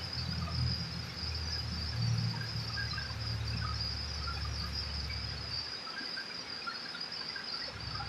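Insects, likely crickets, trilling steadily at a high pitch, over a low rumble that stops about six seconds in.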